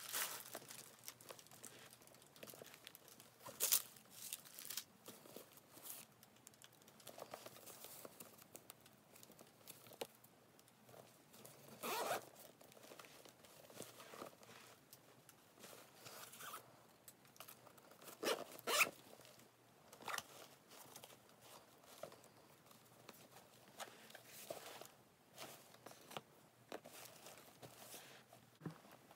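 Handling a Coach signature chambray tote with leather trim: quiet, intermittent rustles and scrapes of fabric and leather, with zipper pulls on the inside zip pocket.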